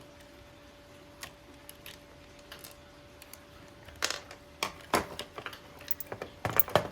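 Scattered clicks and clacks of a plastic toy train's parts being handled as it is taken apart, a few sharper knocks around four and five seconds in, over a faint steady hum.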